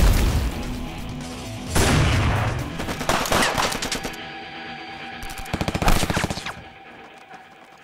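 Gunfire in an action-film soundtrack: heavy booming shots at the start and about two seconds in, then rapid bursts of automatic fire, the fastest a little past halfway, before it dies away near the end. Music plays underneath.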